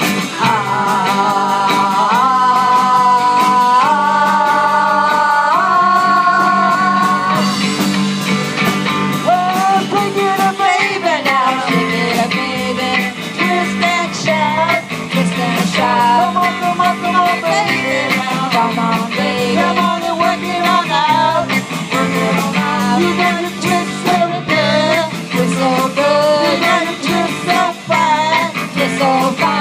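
Live rock band playing through a PA: electric guitars and a drum kit, with women singing. Held chords open the passage, then the singing comes in over a steady beat.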